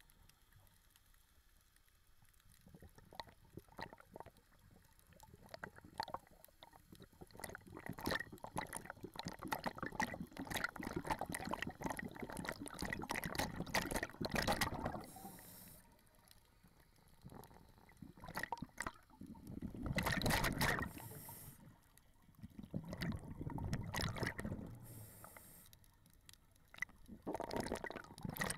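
Scuba diver breathing through a regulator underwater: long bursts of exhaled bubbles gurgling every few seconds, with short high hisses of inhalation in the lulls between them.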